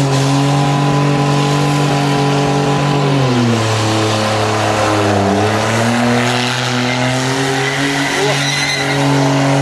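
Holden VN Commodore doing a burnout: the engine is held at high revs, drops in pitch about three seconds in, dips again briefly around five seconds, then climbs back and holds, over the hiss and squeal of the spinning rear tyres.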